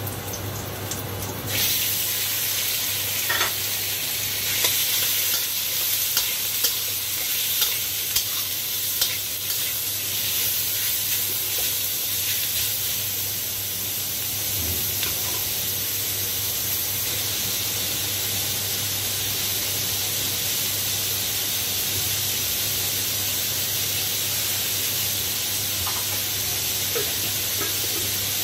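Diced pork belly and garlic sizzling in hot oil in a steel wok. The sizzle jumps louder about a second and a half in, as the pork goes into the oil. A spatula clicks and scrapes against the wok several times over the next several seconds, then the sizzle carries on steadily.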